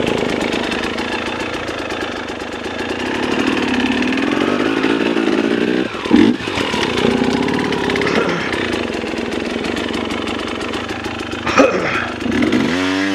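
Dirt bike engine running under changing throttle, its pitch rising and falling, with two sharp knocks about six and eleven and a half seconds in and a quick rev up and back down near the end.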